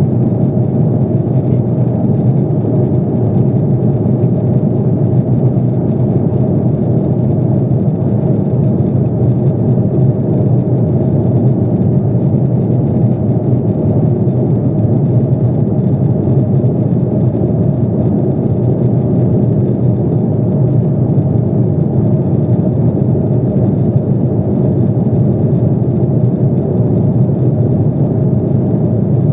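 Airbus A330 airliner in cruise flight, heard inside the passenger cabin: a steady, low rushing hum of engines and airflow that does not change.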